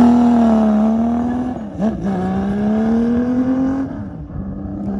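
Benelli 750 Sei's 747 cc inline six-cylinder engine with a six-into-one exhaust, accelerating away. Its pitch climbs, dips briefly about two seconds in, then climbs again. About four seconds in the pitch drops and the sound fades as the bike moves off.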